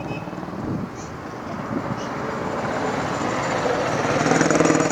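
A motor vehicle's engine running, growing louder over the last couple of seconds as it draws near.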